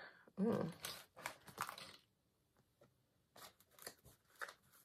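Tarot cards being handled and shuffled: short papery rustles and snaps, a busy run in the first two seconds, a pause of about a second, then scattered softer taps and rustles.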